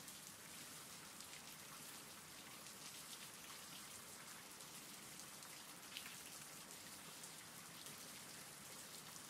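Faint steady rainfall, with a fine ticking of single drops through it.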